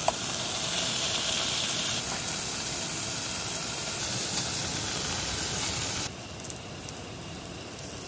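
Slices of pork jowl sizzling in a hot pan as they are laid in. About six seconds in, the sizzle drops to a much quieter hiss with a few faint crackles.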